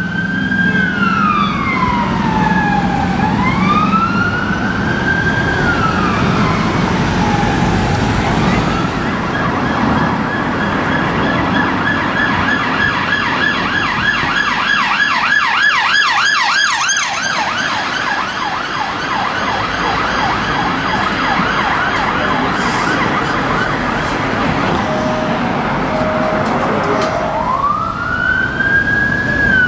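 Emergency vehicle sirens over city traffic. It opens with a slow rising-and-falling wail from a private ambulance. At about nine seconds it changes to a fast yelp from the Metropolitan Police's electric BMW i3 response car, and a slow wail returns near the end.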